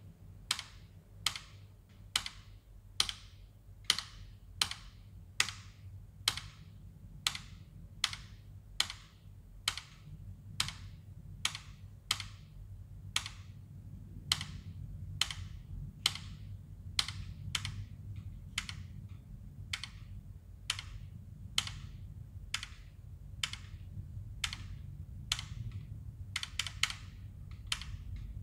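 Sharp keyboard key clicks at a slow, steady beat, a little more than one a second, over a low hum; in the last couple of seconds they come quicker and unevenly, like typing.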